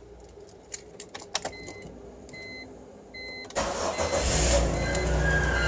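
A few clicks and short high beeps, then a 2005 BMW E46 320i's straight-six cranks and starts about two thirds of the way in. It settles into running with a high, thin squeal, which the owner puts down to the alternator.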